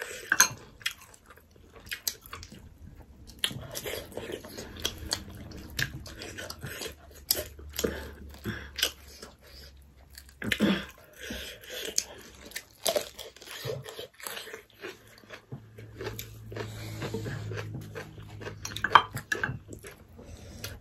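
Chewing and biting into barbecued pork on the bone, with irregular wet mouth clicks and smacks.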